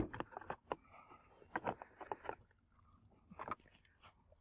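Plastic interior trim panel of a car being handled and worked loose from its clips: a few scattered light clicks and crackles of plastic.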